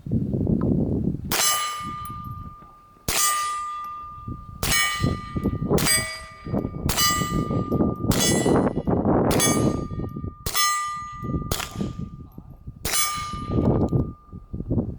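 A steel target ringing as it is hit about ten times in steady succession by a suppressed .22LR Walther PPK/S, the quiet shots each followed by a clear metallic ring.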